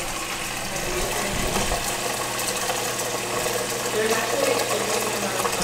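Kitchen faucet running a steady stream of water into a pot in a stainless steel sink, filling it with water.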